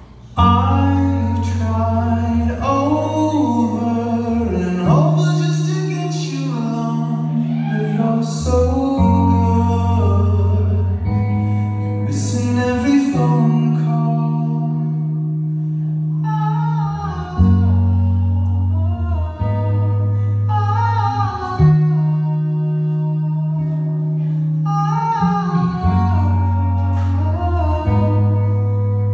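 Live electric guitar music with a singing voice over a sustained low bass line that changes note every few seconds. The music comes in sharply right at the start.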